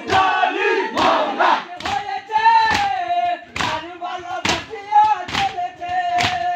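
A crowd of men beating their chests in unison in Muharram matam, a sharp blow about once a second, over crowd chanting. From about two seconds in, a single voice holds a long chanted line over the beat.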